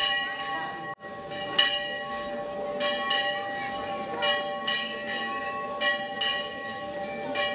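Church bells of an Orthodox monastery being rung: several bells struck in quick, uneven succession, about two to three strikes a second, each ringing on. There is a brief break about a second in.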